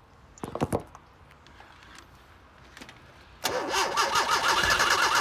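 A few short clicks, then about three and a half seconds in the Datsun truck's starter begins cranking its engine with a steady rhythmic turning-over. It is the first start attempt since last winter, and the engine has not caught yet.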